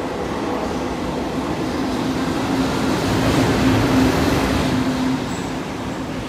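EF65 electric locomotive hauling a container freight train of Koki wagons past the platform: a rumble and rush of wheels on rail that builds to its loudest about four seconds in as the locomotive goes by. A steady hum runs under it and stops about a second later, and the noise eases as the container wagons roll past.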